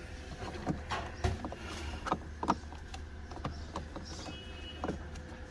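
Light clicks and taps as fingers press the buttons on an AEM Tru-Boost boost gauge, about a dozen irregular clicks over a steady low hum.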